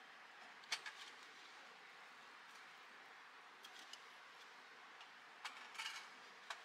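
Near silence over a faint hiss, broken by a few short, sharp clicks and ticks: one loud click about a second in, a couple in the middle, and a small cluster near the end.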